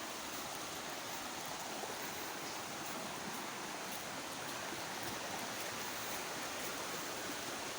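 Steady, even rush of flowing river water, with no strokes or breaks in it.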